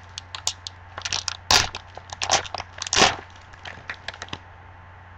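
Foil trading-card pack being torn open and crinkled by hand: a run of sharp crackles and rips, loudest about a second and a half and three seconds in, stopping a little over four seconds in.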